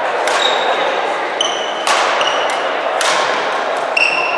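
Badminton rally: rackets strike the shuttlecock three times, roughly a second and a half apart. Short squeaks of court shoes on the wooden floor come between the hits.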